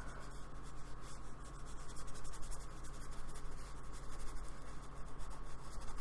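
Paintbrush bristles scratching and dabbing acrylic paint onto a black card sketchbook page: a dense, irregular run of short scratchy strokes, with a low steady hum beneath.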